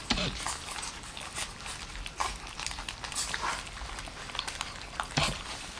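Dachshund puppies lapping and smacking at soft porridge, their first solid food: an irregular string of short wet clicks and smacks.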